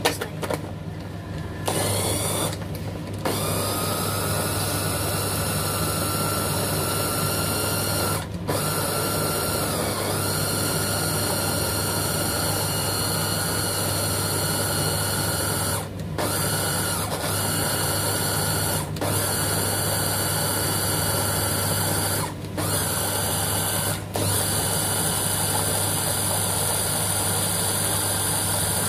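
Electric mini food chopper with a glass bowl and a press-down motor top running steadily, puréeing vegetables. The motor starts about two seconds in, after a few clinks, and cuts out briefly about five times as the top is released and pressed again.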